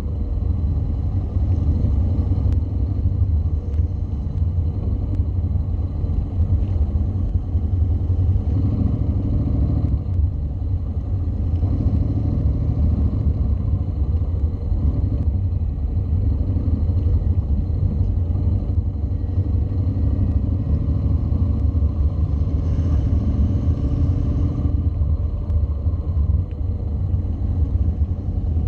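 Onboard sound of a Honda NC700 motorcycle's parallel-twin engine running at low, steady speed: a continuous low rumble with little change in revs.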